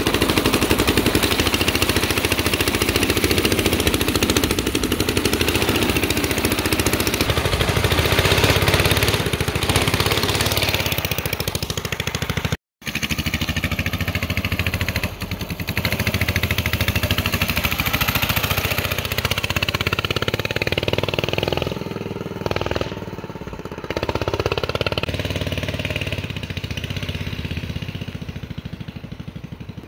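Small go-kart engine running under throttle as the kart is driven, with wind and road noise. The sound cuts out completely for a moment about halfway through, then the engine carries on and gets gradually quieter near the end.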